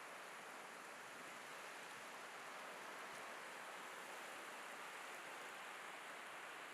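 Faint, steady wash of ocean surf breaking on a sandy beach, an even hiss with no separate wave crashes standing out.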